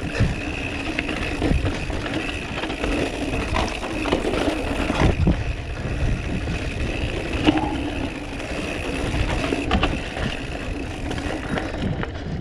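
Mountain bike ridden over a rough trail: a steady rush of wind on the microphone, with knocks and rattles from bumps in the ground.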